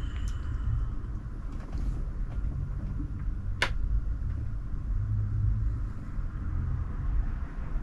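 A steady low rumble, with a single sharp click about three and a half seconds in.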